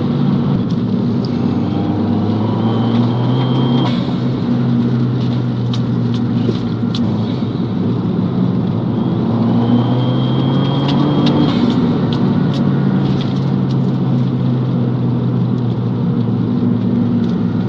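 Fiat 500 Abarth's 1.4-litre turbocharged four-cylinder engine running at steady cruising revs, with a thin high turbo whistle coming in twice. Scattered sharp clicks and rattles sound over the rough road, mostly in the middle stretch.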